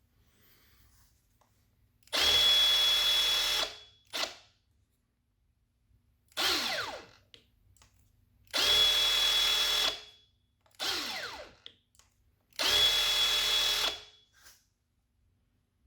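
Cordless Milwaukee M18 power tool motor running in three separate runs of about a second and a half, each with a steady high whine. Between the runs come shorter bursts whose pitch falls away.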